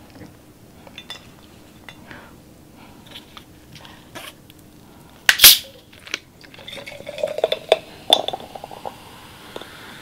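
Light clinks of dishes and glassware being handled, with one sharp loud burst about halfway through. Then cola is poured from a plastic bottle over ice into a glass jar mug, with the ice crackling and the soda fizzing.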